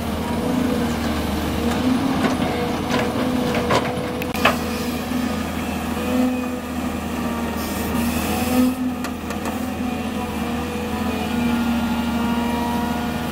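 Heavy diesel machinery running steadily during excavator loading, with a few sharp knocks about two to four and a half seconds in and a brief hiss about eight seconds in.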